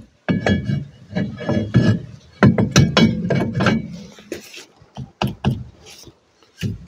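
Opel Corsa Utility's cast-iron rear brake drum knocking and scraping against the brake shoes and hub as it is fitted, pulled off and refitted. A brief metallic ring comes about half a second in, and a few more knocks follow near the end.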